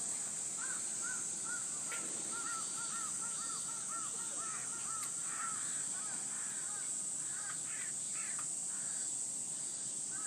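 Steady high-pitched insect drone, with a bird calling in a quick series of short repeated notes for the first half and scattered calls after.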